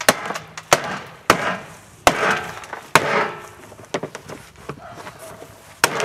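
A plastic washing machine tub being broken apart: about half a dozen sharp, irregularly spaced knocks, with crackling after some of them as the plastic gives way.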